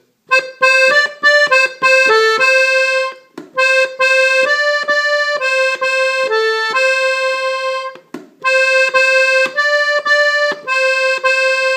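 Gabbanelli button accordion in F playing a short single-line melody on its treble buttons, one note after another in quick succession, with a brief break about three seconds in and another about eight seconds in.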